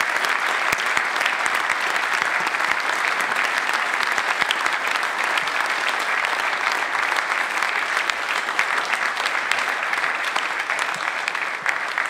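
Sustained applause from a large crowd clapping, a dense, even patter of many hands that begins to thin near the end.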